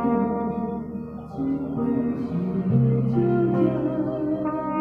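Live band music: a trumpet melody over an accompaniment with a plucked, guitar-like part and a bass line. The trumpet drops back about a second in and plays again in the second half.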